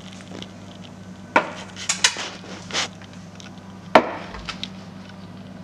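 Kitchenware being handled: about five sharp knocks and clinks of metal baking trays and spoons, spaced irregularly, over a low steady hum.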